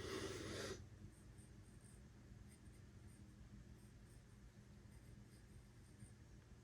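A short dry scratch lasting under a second at the very start, then near silence.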